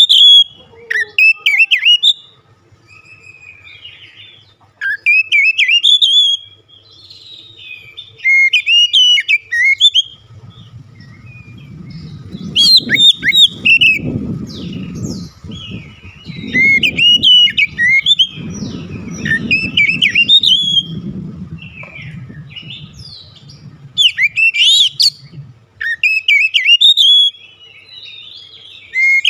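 Oriental magpie-robin (kacer) singing loud, varied whistled phrases in bursts of a second or two with short pauses between them. A low rumble runs underneath from about ten seconds in to about twenty-two seconds in.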